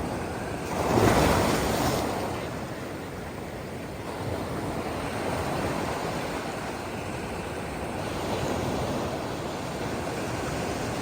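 Ocean surf: a wave breaks loudly about a second in, then the steady wash of water continues with gentler swells.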